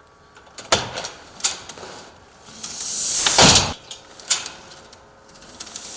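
Security door being opened and let close on its pneumatic door closer, twice: latch clicks, then a rising rush of air that ends as the door shuts. The closer has just been turned clockwise to slow the closing.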